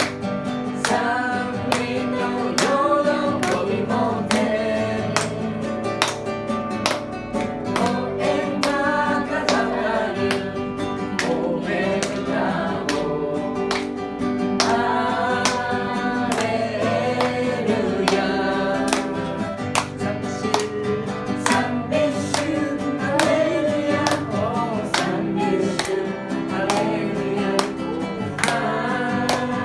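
A small group singing a Christian hymn together, accompanied by a strummed acoustic guitar in a steady rhythm.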